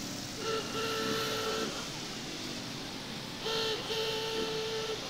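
A vehicle horn honks twice, each time a quick beep then a steady note of about a second, over the low noise of cars passing.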